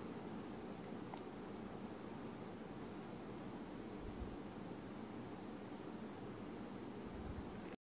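An insect trilling: one steady high-pitched trill, pulsing rapidly and evenly, that cuts off suddenly near the end.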